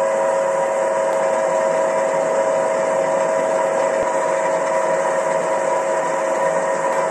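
Bench drill press running steadily, spinning a cloth buffing wheel loaded with green polishing compound: an even motor hum with a constant whine that does not change pitch.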